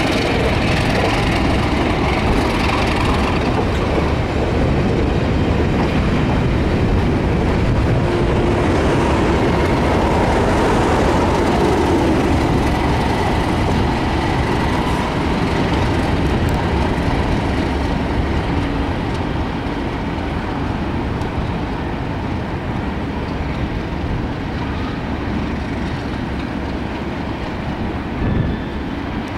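Test train hauled by two Class 37 diesel locomotives passing at speed. The steady rumble of coach wheels on the rails is joined by the rear locomotive's English Electric V12 diesel engine as it goes by around the middle. The sound then fades steadily as the train pulls away.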